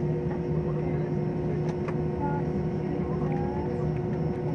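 Steady hum of a passenger jet's engines at low power, heard inside the cabin as the airliner taxis onto the runway, with two constant low drones under an even rushing noise.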